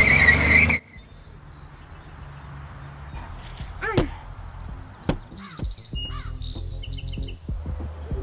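A van's engine revving with a loud rush of noise, cut off abruptly under a second in. Then quiet background music of low held notes with scattered bird-like chirps.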